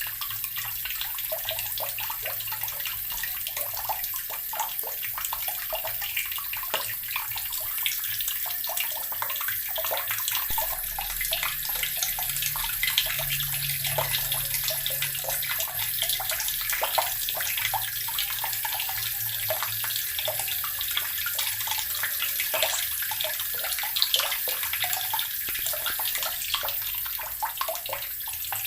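Water running from a tap into an earthenware barrel, gurgling and splashing steadily with a dense patter of small splashes.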